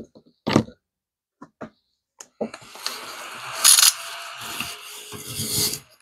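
Small battery-powered desk vacuum running for about three and a half seconds, a steady whir with a hiss as it is passed over a scratch-off ticket to pick up the scratched-off shavings.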